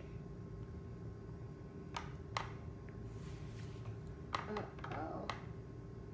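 A child's small fork tapping and scraping against a plastic plate: a couple of light clicks about two seconds in, then a quick cluster of clicks near the end.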